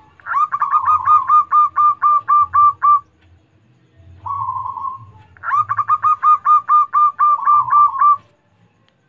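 Zebra dove (perkutut) singing its rapid cooing song: two phrases of about ten quick coos each, roughly four a second, with a single short coo between them.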